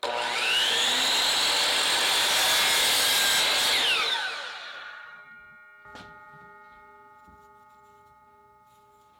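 Electric power saw switched on, its motor whine rising as it spins up, then cutting through wood for about four seconds. It is switched off and winds down, leaving a faint steady ringing and a single click about six seconds in.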